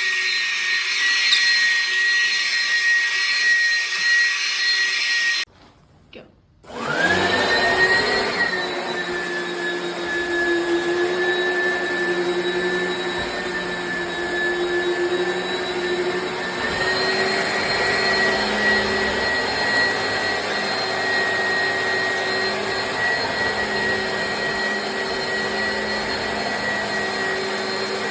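Oreck Commercial upright vacuum cleaner running with a steady high whine over a rush of air. About five and a half seconds in it cuts out for a moment, then spins back up, its pitch rising, and runs on steadily.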